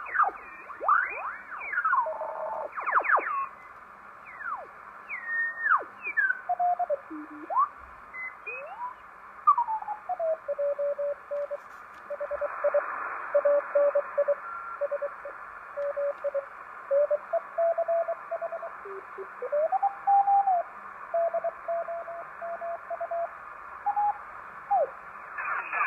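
Homebuilt single-board superheterodyne receiver being tuned across the 80-metre amateur band. Band hiss is heard with whistling beat tones that slide up and down as the dial turns. From about ten seconds in, it settles on Morse code signals keyed as short and long tones.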